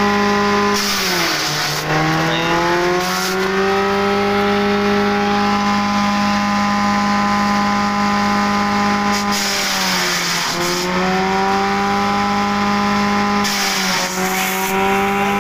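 Grass chopper driven by a 1 HP electric motor, running with a steady whine like a grinder. Three times, about a second in, around ten seconds and near the end, the pitch sags with a burst of chopping noise as a bundle of elephant grass goes through the blades, then climbs back to full speed.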